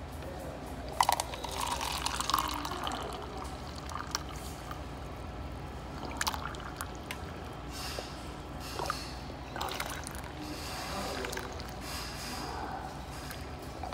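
Liquid pouring from the spout of a self-serve breakfast drink dispenser into a cup, in several short runs, with a sharp click about a second in.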